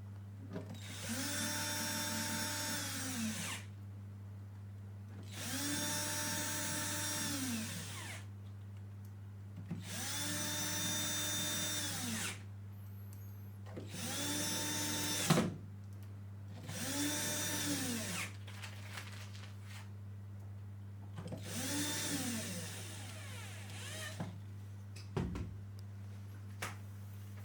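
Handheld electric screwdriver motor run six times in short bursts of two to three seconds, each winding up, holding a steady whine, then winding down. A sharp click is the loudest moment, about halfway through. A steady low hum runs underneath.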